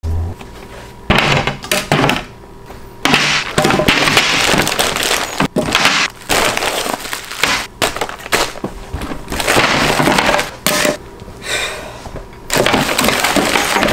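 Paper and plastic bags crackling and rustling in irregular bursts as paint cans and supplies are unpacked, with a few sharp knocks of items set down on a glass tabletop.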